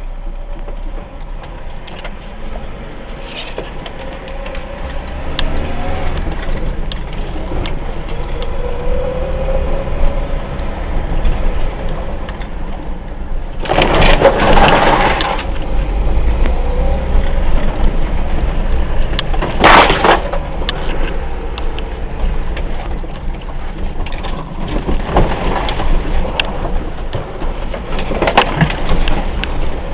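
Vehicle driving along a rough track: a steady engine and road rumble with the engine pitch shifting now and then, and loud crunching surges about halfway through and again shortly after.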